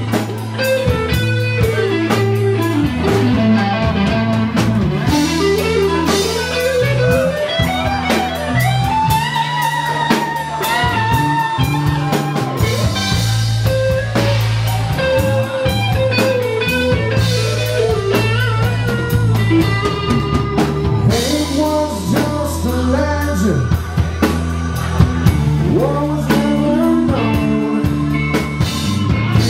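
Live rock band playing loudly: electric guitar and drum kit, with a melodic lead line sliding up and down over steady low notes.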